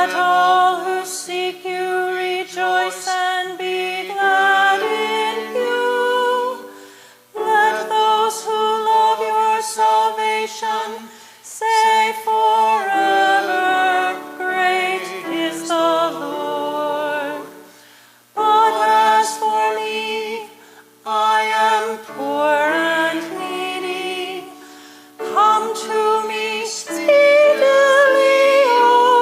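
A hymn sung with a woman's voice leading over held accompanying notes, in phrases of a few seconds with short breaks between them.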